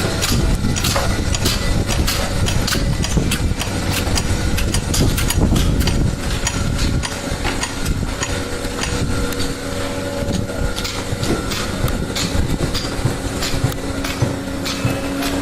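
Construction-site noise: an engine running steadily, with many sharp knocks sounding through it.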